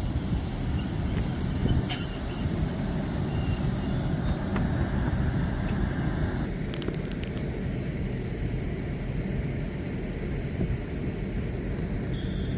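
LNER Class 800 Azuma train pulling into the platform. A high brake squeal lasts about four seconds and then stops, leaving a steady low rumble from the train as it comes to rest.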